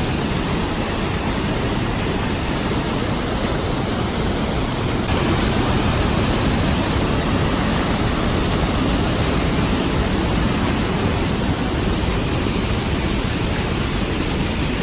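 Steady roar of Niagara Falls' water crashing close by, an even rushing noise that gets slightly louder about five seconds in.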